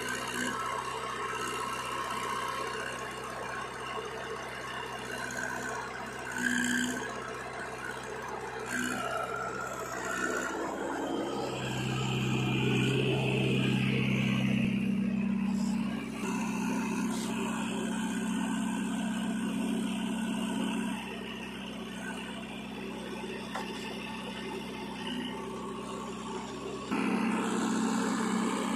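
Diesel engines of a JCB 3DX backhoe loader and a Mahindra tractor running steadily. The engine hum grows deeper and louder a little before halfway, when the tractor is close by, and again near the end, when the backhoe is loading soil into the tractor's trolley.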